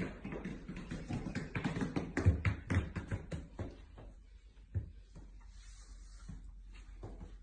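Quick irregular taps and knocks for about three and a half seconds, then quieter, with one more knock shortly after.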